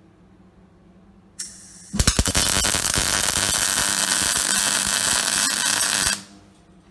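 Wire-feed (MIG) welder's arc crackling steadily for about four seconds as a weld is run on metal parts, preceded by a brief hiss about a second and a half in and cutting off suddenly when the trigger is released.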